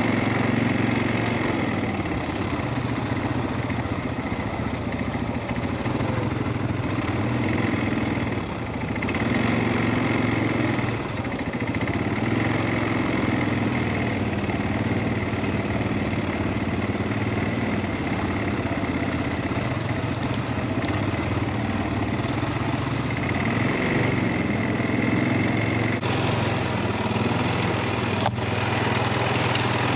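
CFMOTO ATV engine running while riding, its pitch rising and falling every few seconds with the throttle. A single sharp click comes near the end.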